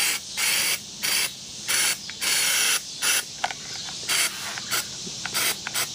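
Undercoating being sprayed onto a car's inner fender well in short hissing bursts, repeated about every half second and growing shorter and fainter in the second half.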